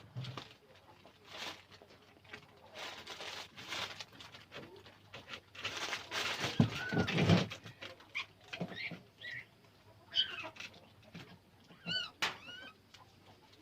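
Newborn puppies squeaking and whimpering in short, high calls, the clearest two close together near the end. A stretch of rustling and shuffling comes before them, around the middle.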